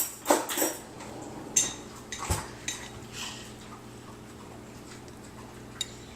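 A fork clinking and tapping against a dish or container, several sharp clicks in the first few seconds, then one light click near the end.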